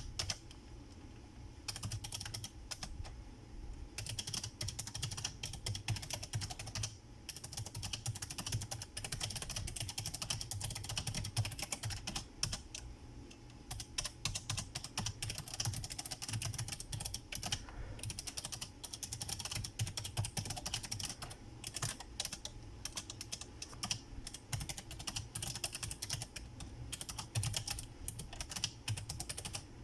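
Typing on a Razer Ornata Chroma mecha-membrane keyboard: a fast, irregular run of soft key clicks, broken by brief pauses.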